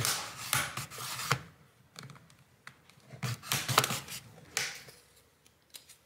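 Plastic pry tool scraping and clicking along the seam of a ThinkPad T480's plastic bottom cover as it is levered apart, in several short bursts.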